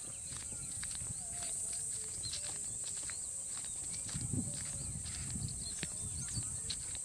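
Footsteps of a person walking through grass along a dirt path, with some heavier low thumps and rustle from about four seconds in. Under them runs a steady high-pitched insect drone, with a few short bird chirps.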